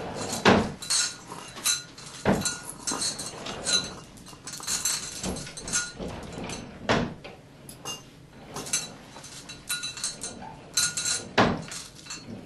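Irregular clattering of knocks and clinks, with a few louder knocks one to two seconds apart and short ringing tones on some strikes: household clatter heard as house noises.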